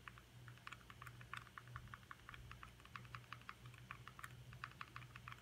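Faint, quick clicking of remote-control buttons pressed over and over, several clicks a second, stepping a cursor across an on-screen keyboard. A low steady hum sits underneath.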